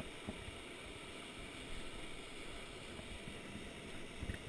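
Faint, steady rushing of a fast-flowing river, with a few soft knocks near the end.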